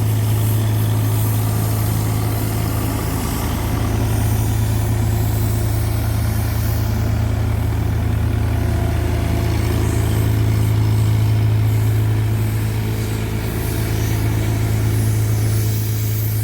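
Kawasaki K12II road roller's diesel engine running steadily: a deep, even hum that swells slightly in loudness a few times.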